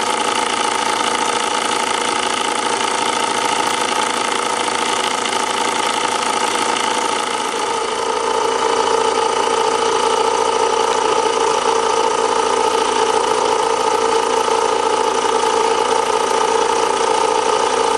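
Doll toy stationary steam engine running steadily on live steam: a continuous, even mechanical whir with steady tones, shifting a little in pitch and getting slightly louder about eight seconds in.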